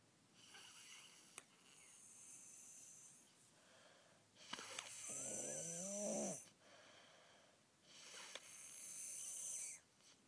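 A young child snoring in his sleep, taking four loud, hissing breaths about two seconds apart. The loudest, in the middle, breaks into a pitched snore that rises and wavers. This is the obstructed breathing of sleep apnea, from enlarged tonsils and adenoids blocking 97% of his airway.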